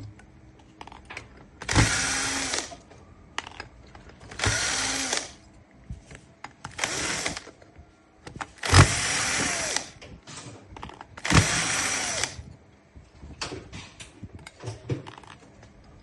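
Power drill run in five short bursts, each spinning up and winding down, about every two and a half seconds, with small clicks and taps in between.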